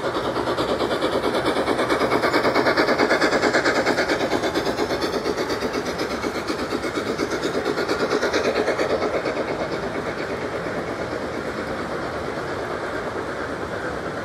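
Model freight train rolling past on layout track: a steady rapid clatter of wheels on the rails, louder about two to four seconds in and again around eight seconds, easing off toward the end as the last cars go by.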